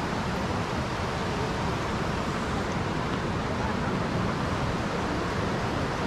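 Steady rush of a waterfall, an even roar of falling water with no breaks.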